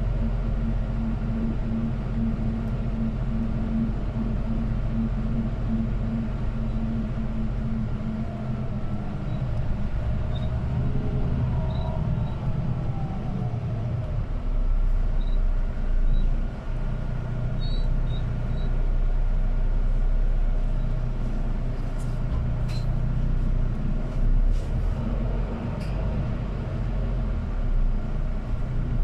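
Inside a city bus under way: a steady low hum from the engine and drivetrain, with the engine note changing pitch about ten seconds in, and a few short rattles or clicks from the cabin near the end.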